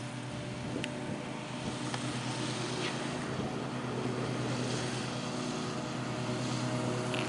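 Radio-controlled 2.0 m T-28 model airplane's motor spinning its propeller with a steady drone, getting slowly louder.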